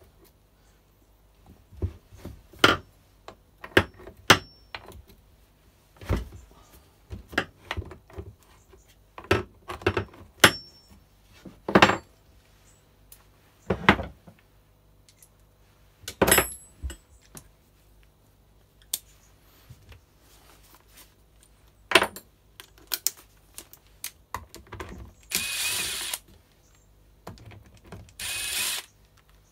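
Scattered clicks, knocks and clinks of hand tools and metal parts as a chainsaw's side cover and bar and chain are taken off, with two hissing bursts of about a second each near the end.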